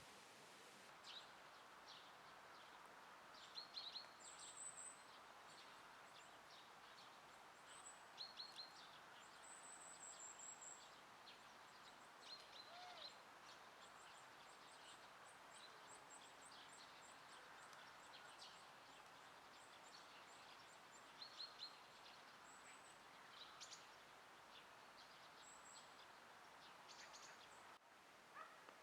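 Small birds calling faintly with short, high chirps scattered throughout, over a steady faint outdoor hiss.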